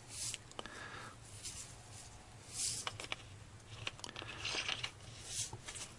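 Faint scattered rustles and a few soft clicks: granulated sugar trickling into a hollowed-out pumpkin from a plastic container, and the container being handled.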